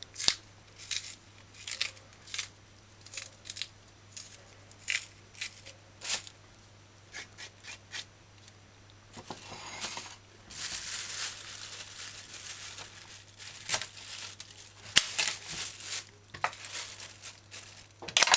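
Kitchen knife cutting and scraping the peel off green bananas: a string of short, sharp cuts. From about ten seconds in, plastic bags rustle and crinkle as a wedge of pumpkin wrapped in plastic is handled.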